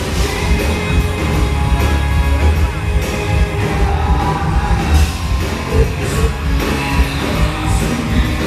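A live heavy metal band playing at full volume through the PA: amplified guitars, bass and drums, with a singing voice over them.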